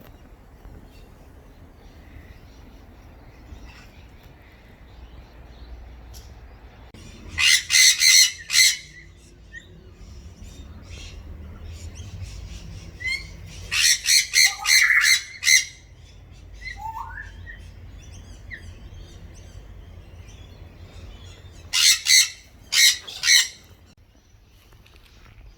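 Wild galah cockatoos giving harsh screeching calls in three short bouts of several quick calls each, with a couple of faint sliding whistles in between.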